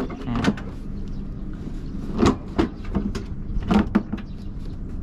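A truck's plastic battery box cover being unlatched and worked loose by hand: a series of sharp clicks and knocks, over a steady low hum.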